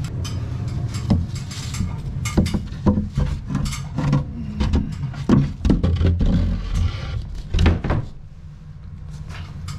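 Knocks and thumps of a person climbing down a ladder out of an attic, irregular and loudest from about one to eight seconds in, then stopping. A steady low hum runs underneath.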